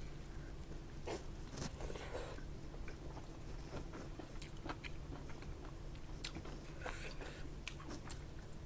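A person chewing food close to the microphone, with scattered small crunches and wet mouth clicks.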